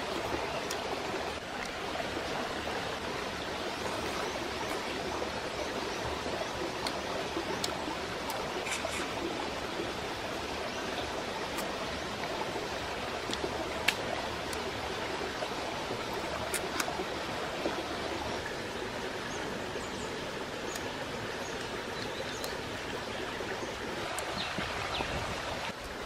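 Steady rushing of a stream flowing over rocks, with a few sharp clicks, the loudest about halfway through.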